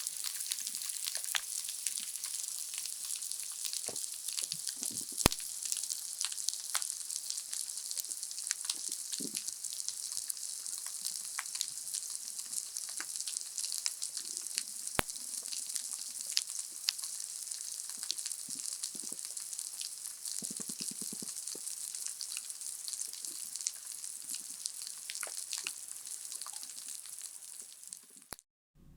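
Underwater coral reef soundscape on a hydrophone: a dense, steady crackle of many high clicks, typical of snapping shrimp, with scattered louder snaps and a few low grunts and knocks. It cuts off just before the end.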